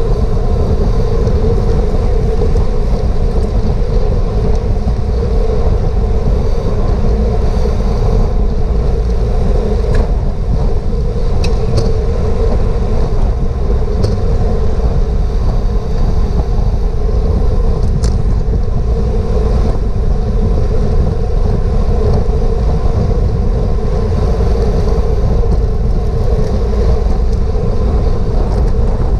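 Steady, loud wind rushing over a GoPro's microphone on a bicycle ridden at race speed, with a few faint clicks.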